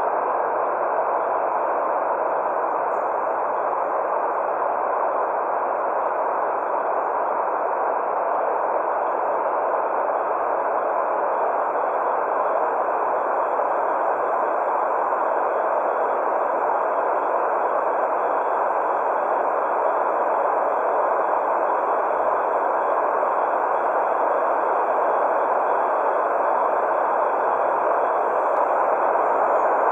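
White noise for baby sleep: a steady, even hiss centred in the middle range, with no breaks or changes.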